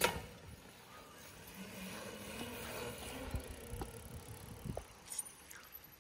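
Kid's mountain bike setting off and rolling away over asphalt: a sharp click at the start, then tyre and drivetrain noise that fades as the bike moves off.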